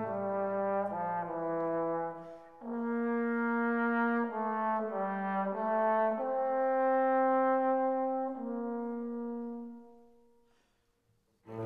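Background music of brass instruments playing slow, held notes in changing chords, fading out near the end.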